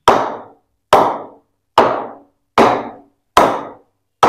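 A cricket ball bouncing repeatedly on the face of a willow cricket bat, hit lightly and steadily, six sharp knocks about one every 0.8 s, each with a brief ring. This is the bat's 'ping' being tested: a light tap that sends the ball well up shows a good rebound.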